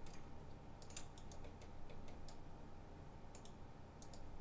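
A few scattered, sharp clicks of a computer mouse and keyboard, over a faint steady hum.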